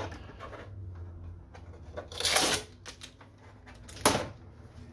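Packing tape and plastic being pulled off a new inkjet printer's casing by hand: one short tearing rasp about two seconds in, then a single sharp click near the end as a part is handled.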